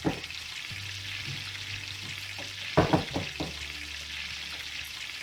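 Frying sound effect: a steady sizzling hiss, with a couple of short knocks about three seconds in.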